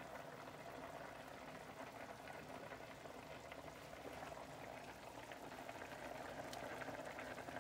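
Chicken broth at a rolling boil in a stainless steel pot, bubbling steadily.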